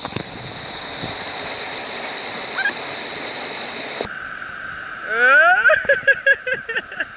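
Waterfall cascade rushing over rock, a steady hiss that cuts off abruptly about four seconds in. After that, over quieter flowing water, a person's loud yell rises in pitch and breaks into a string of short cries, loudest about five seconds in.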